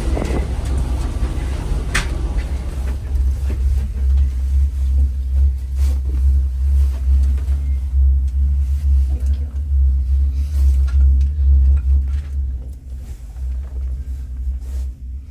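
Steady low rumble inside a moving gondola lift cabin, with a single sharp knock about two seconds in; the rumble eases a little near the end.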